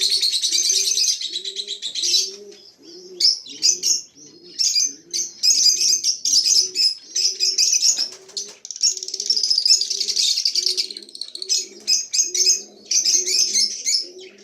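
African lovebirds chattering shrilly, in dense bursts with short breaks. A low cooing note repeats about twice a second underneath throughout.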